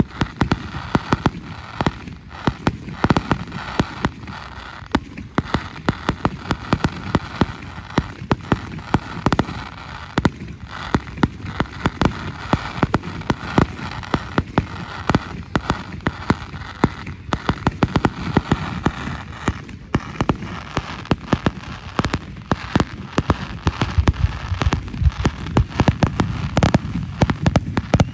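Fireworks going off in a dense barrage: many sharp bangs each second over a continuous crackle, starting suddenly and filling the low end more heavily near the end.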